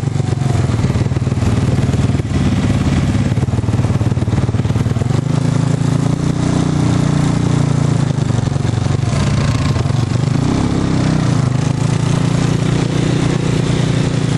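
Side-by-side utility vehicle's engine running as it drives across a grassy field, its pitch rising with the throttle about five seconds in and again after about ten seconds.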